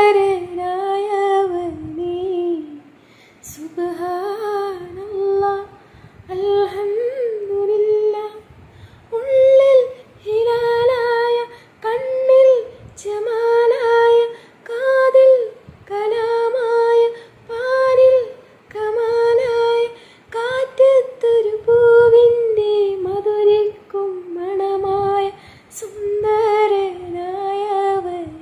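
A woman singing unaccompanied, in short melodic phrases of a second or two separated by brief pauses.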